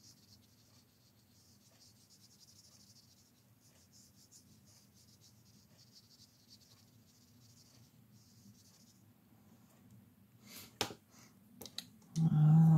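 Faint soft scratching of a water brush pen's tip stroking over paper. Near the end a few sharp clicks as the pen is set down on the table, then a brief hummed 'mm' from a voice.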